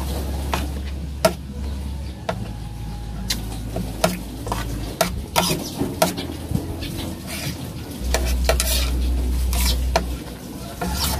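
Fork and spoon clinking and scraping on a plate as fish and rice are picked apart: many short clicks at irregular intervals. A low rumble runs underneath, louder at the start and again about eight seconds in.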